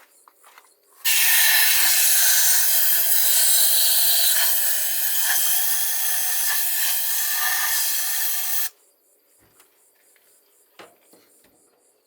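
Aerosol can of starter fluid sprayed in one long, steady hiss of about seven and a half seconds, starting about a second in and stopping sharply. It is priming the carburetor, whose float bowl is still empty, before the engine's first start.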